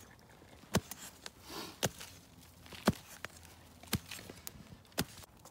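A digging tool striking into the ground while a hole is dug by hand: five sharp hits about a second apart.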